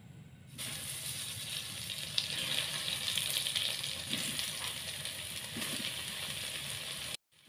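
Tempeh sizzling in hot cooking oil: a steady frying hiss with a few brief pops. It starts suddenly about half a second in and cuts off abruptly near the end.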